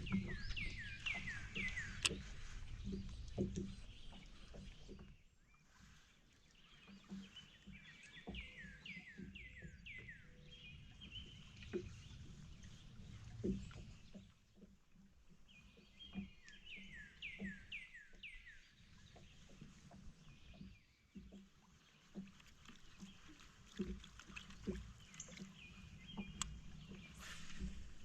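A songbird singing a repeated phrase: a buzzy note followed by a quick series of descending whistles, given about every seven or eight seconds. Low rumble and scattered soft knocks sit beneath it.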